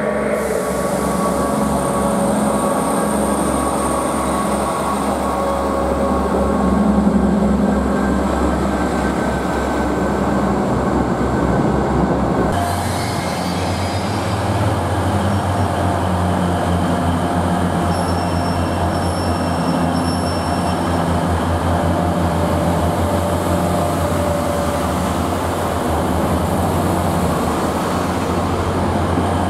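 Diesel multiple-unit trains running in a station. First comes the underfloor diesel engine of a Northern Class 158 as it pulls away. After an abrupt change a little under halfway, a deeper, steadier diesel drone follows as a Class 142 Pacer and another unit move along the platforms, with faint high squeals partway through.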